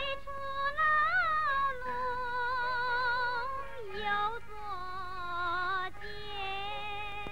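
Opera film score music: a single high melody line held in long notes with vibrato, over soft accompaniment.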